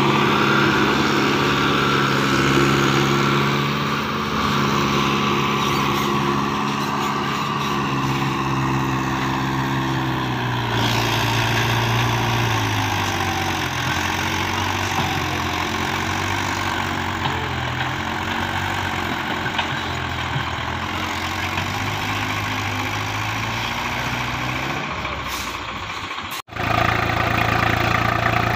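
Mahindra Yuvo 415 DI tractor's diesel engine working under heavy load as it drags a loaded trolley through soft sand and mud. It runs steadily at first, then its pitch wavers up and down as it strains. After a sudden break near the end, another tractor's diesel engine, a Swaraj 735 FE's, runs steadily.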